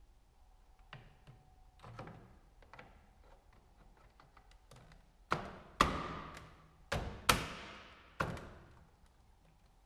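Plastic mirror housing of a BMW R1100RT/R1150RT fairing being fitted by hand: light plastic clicks and taps, then five sharp smacks in the second half as it is knocked home onto its mounts, each ringing briefly.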